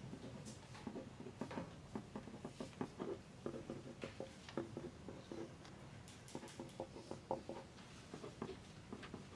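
Exam-room ambience: pencils scratching and tapping on paper in many short, irregular strokes, faint throughout.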